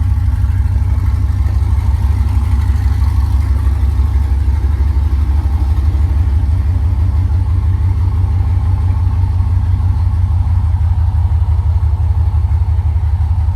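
A Holden VX Commodore SS's LS1 V8 idling steadily, freshly fired up after sitting for over a year.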